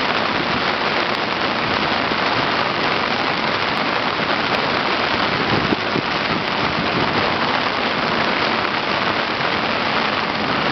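Heavy thunderstorm rain falling on a sailing yacht's deck, a steady, even hiss that does not let up.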